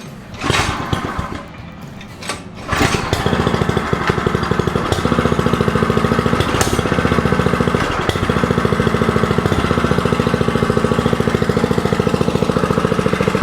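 Recoil starter pulled on a Hover Hearts mini bike's 105cc single-cylinder four-stroke engine, its first start fresh out of the box. It catches about three seconds in on the second pull, then idles steadily with an even, rapid firing beat, pretty quiet.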